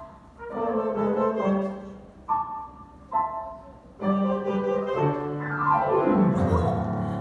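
Instrumental theatre music led by piano: short chords separated by brief pauses, then a sweeping downward glide near the end that lands on a held chord.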